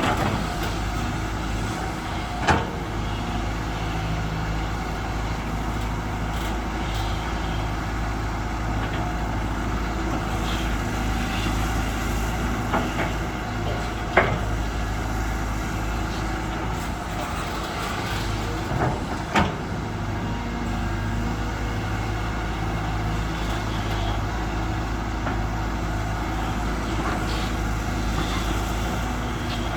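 Heavy diesel engine running steadily, with a few sharp knocks or clanks about two and a half seconds in, near the middle and about two-thirds of the way through.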